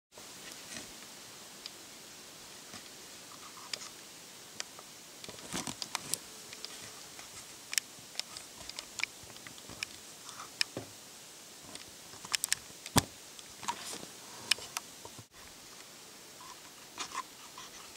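Irregular sharp clicks and snaps over a steady hiss, the loudest about two-thirds of the way through: a black bear feeding and moving about at a bait pile.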